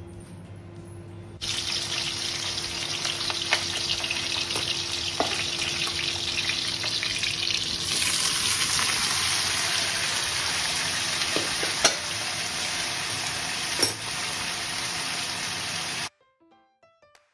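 Jackfruit pieces frying in hot oil in a metal kadhai, a steady sizzle. It starts suddenly about a second and a half in and turns brighter about eight seconds in, as more pieces go into the oil. A few sharp clinks of the spatula against the pan come through it, and the sizzle cuts off suddenly near the end.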